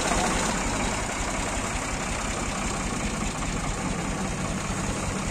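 Ford tractor's diesel engine running steadily at low revs as the tractor creeps through a tight gateway.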